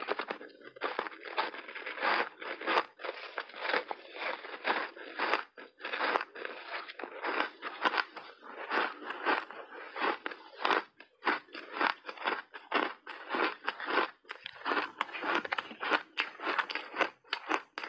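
A mouthful of crunchy ice snowball coated in matcha powder being chewed: irregular crunching and crackling of ice between the teeth, several crunches a second.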